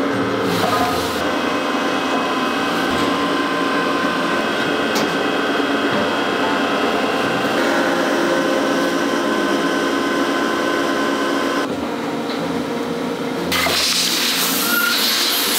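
Hydraulic compression-moulding press running, a steady hum of several fixed pitches from its pump and motor. Near the end a loud rushing hiss comes in.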